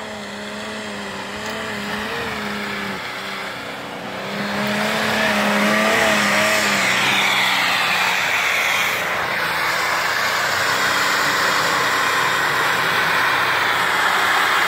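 Mitsubishi Delica's petrol 24-valve V6 3000 driving up a steep snowy slope. About five seconds in it rises to high revs and stays there, with a loud rush and whine as the tyres spin and throw snow and soil.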